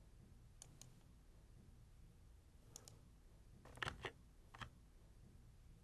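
Faint computer mouse clicks over near silence, several coming in quick pairs like double-clicks.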